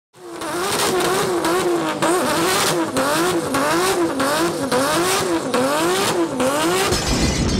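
A car engine revving in repeated blips, its pitch rising and falling about every half second.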